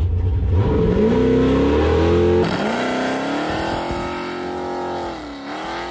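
Chevelle's engine revving hard in a burnout, its pitch climbing steeply at first, then held high with a brief dip near the end. It is heard first from inside the car, then, after a sudden change about two seconds in, from outside, with the rear tyres spinning.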